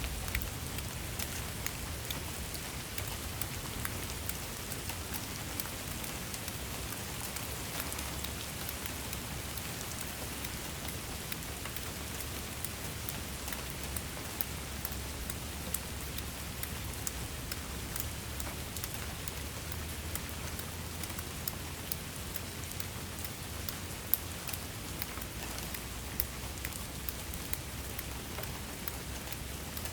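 Steady rain falling, a continuous hiss with many scattered drop ticks on a hard surface and a faint low rumble underneath.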